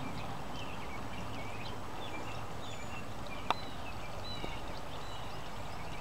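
Small songbirds calling with many short, high chirps over a steady background hiss, with one sharp click about three and a half seconds in.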